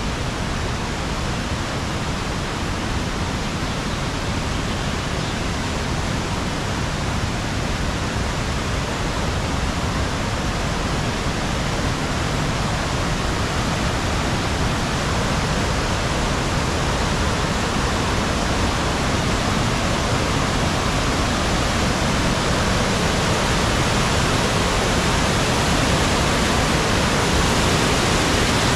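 Waterfall: a steady rush of falling water, growing gradually louder.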